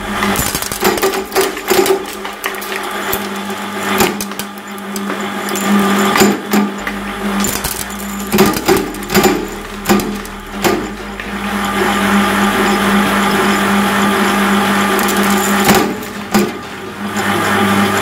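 Twin-shaft shredder running, its steel cutters turning with a steady motor hum, while leftover glass pieces crack and clatter in the blades in quick irregular snaps through the first part. Later it settles into a more even grinding run.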